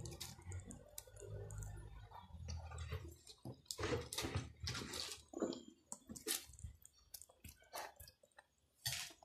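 Wet mustard greens being turned in a pot of broth: irregular splashes, drips and squelches.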